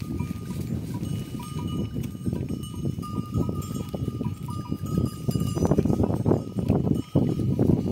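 A large herd of goats jostling round a water trough: a dense shuffle and knocking of hooves and bodies, growing louder about two-thirds of the way in, with bells ringing thinly above it.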